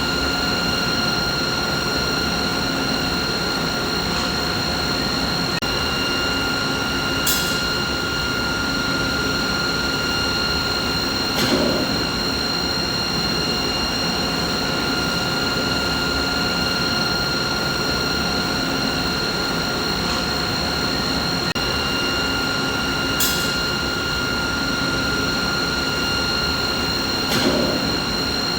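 Steady machinery hum: an even rushing noise with several constant whining tones over it, one of which fades in and out. Four brief clicks break through in two matching pairs, a light high tick followed four seconds later by a duller knock, the pair coming round again about 16 seconds later.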